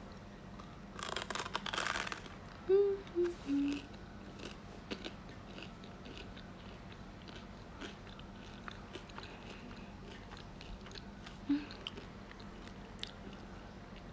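A person biting into food with a crackling crunch about a second in, then chewing with small wet clicks, humming three short "mm"s, falling in pitch, a few seconds in and once more near the end.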